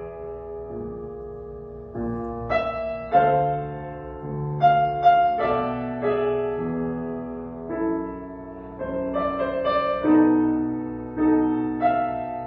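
Fazioli grand piano being played: an unhurried passage of chords and single melody notes, each struck and left to ring as it fades.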